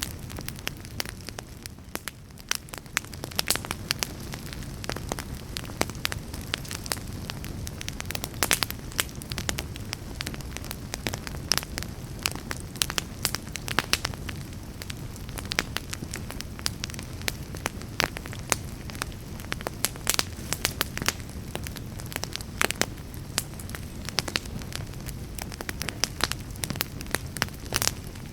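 Fire in a fireplace crackling, with frequent irregular sharp pops and snaps over a low steady rumble of the flames.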